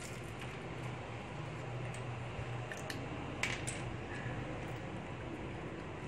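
A few faint clicks of small 3D-printed plastic parts being picked up and handled, over a steady low hum.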